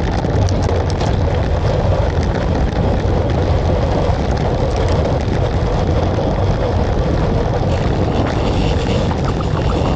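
A steady engine drone with a low hum under a broad rushing noise, even throughout, with a few faint clicks.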